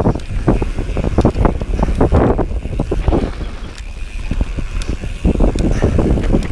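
Mountain bike descending rough dirt singletrack at speed: tyres rumbling over the ground and the bike rattling and knocking irregularly over bumps, with wind buffeting the chest-mounted camera's microphone.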